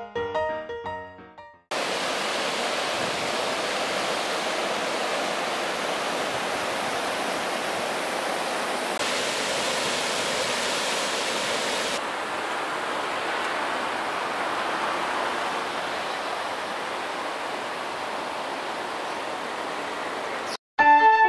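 Piano music ends about two seconds in, giving way to river water rushing over a low weir: a steady, even rush of falling water that holds until music cuts back in at the very end.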